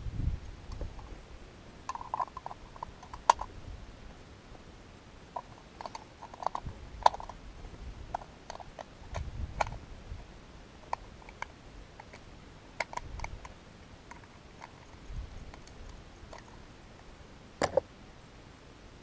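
A rifle magazine being loaded by hand with .260 Remington cartridges: scattered small metallic clicks and clinks, a few of them sharper and ringing briefly.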